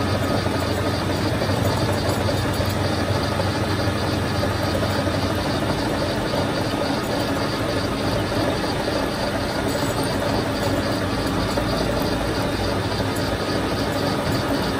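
Metal lathe running steadily, its spindle turning a steel pin against the cutting tool.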